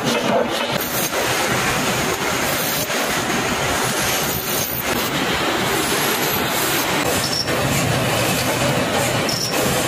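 Small machine tools running while cutting brass plug pins, a drilling or pressing head and then a lathe, making a loud, steady mechanical running noise.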